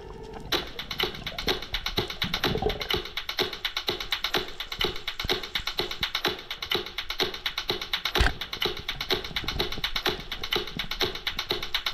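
Background dance music with a fast, steady beat of drums and quick hi-hat-like ticks, coming in about half a second in after a held chord.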